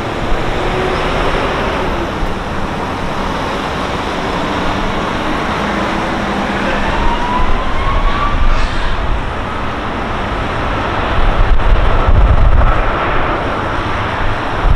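Turbofan engines of a twin-engine wide-body jetliner running at high power as it rolls down the runway: a loud, steady rush with a faint tone rising in pitch about halfway through, growing louder near the end.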